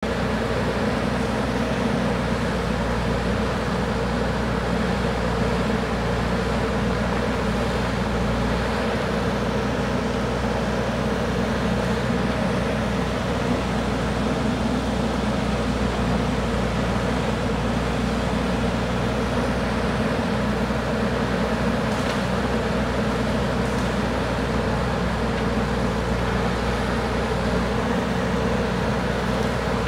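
JCB backhoe loader's diesel engine running steadily at a constant speed, with no revving.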